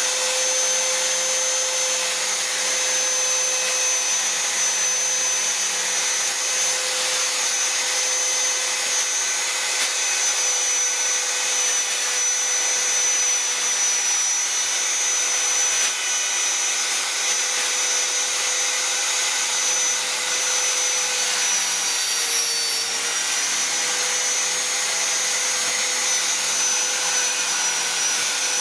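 Handheld electric die grinder with a rotary carving burr running at a steady high whine as it grinds into wood. The pitch dips briefly about two-thirds of the way through.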